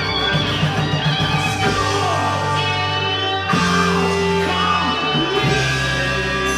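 Music with held, sustained notes, moving to a new set of held notes about three and a half seconds in.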